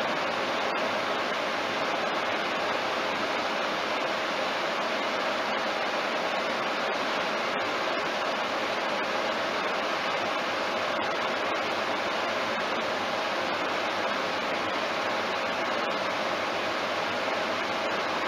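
Steady road and tyre noise with wind rush, heard inside a car cruising at highway speed, about 85 km/h.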